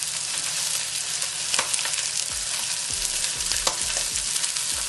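Salmon fillet searing in a hot pan: a steady sizzle, with a couple of light clicks about a second and a half in and near the end.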